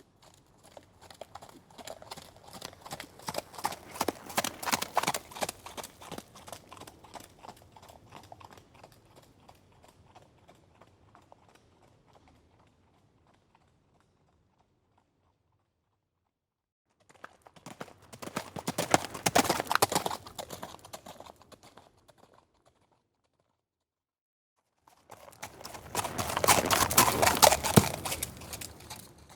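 Horse hooves clip-clopping in quick rhythmic beats: one pass swells to its loudest a few seconds in and fades away, then two shorter, louder passes of hoofbeats follow after a pause.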